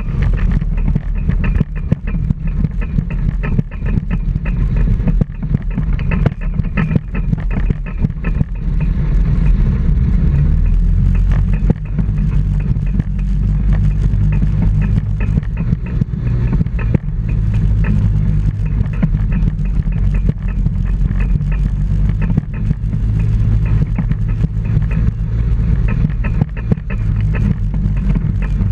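Microlight trike's engine and pusher propeller running steadily while the trike rolls across a grass field.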